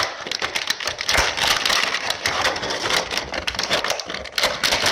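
Plastic blister packaging of an action figure crackling and clicking as it is worked open and the figure is pulled out of the package: a busy, irregular run of clicks and crinkles.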